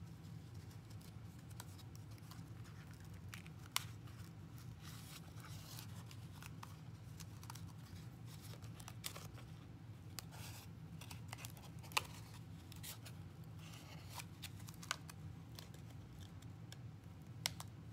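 Faint handling of yarn and a cardboard loom as woven warp loops are worked off its notched edge, with light scratching and about five sharp clicks spread through. A steady low hum runs underneath.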